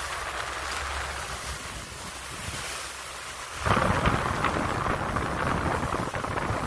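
Wind rushing over a phone's microphone on a moving boat, with a steady hiss of water. About halfway through it turns louder and rougher, with a low rumbling buffet.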